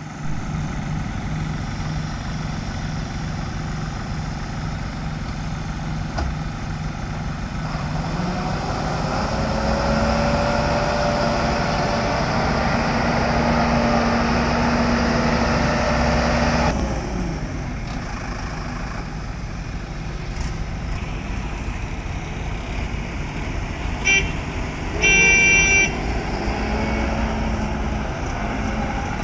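AJAX Argo 4300 self-loading concrete mixer's diesel engine running, rising in pitch and getting louder for several seconds in the middle as it works harder, then settling back to a lower note. Near the end a horn gives a short toot and then sounds for about a second.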